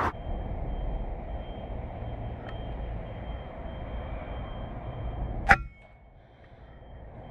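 A single sharp crack from a .22 PCP air rifle, a Kalibrgun Cricket II, fired once about five and a half seconds in over a steady low rumble.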